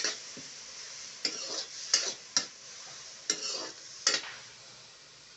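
Spatula scraping and stirring sliced onions and green chillies as they fry in oil in a kadhai. About six scraping strokes sound over a steady sizzle that fades near the end.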